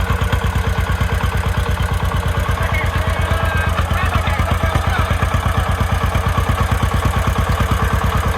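Single-cylinder diesel engine of a homemade công nông farm vehicle running steadily with an even, rapid thudding beat.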